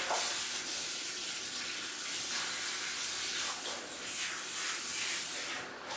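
Handheld shower head spraying water onto a cat's wet fur: a steady hiss that dips briefly near the end.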